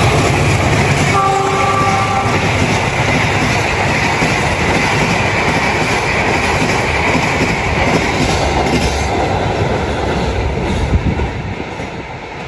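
Passenger train hauled by a diesel locomotive rolling past at speed, its carriages' wheels rumbling and clacking over the rail joints, then fading as the train pulls away near the end. About a second in, a short train horn note sounds for roughly a second.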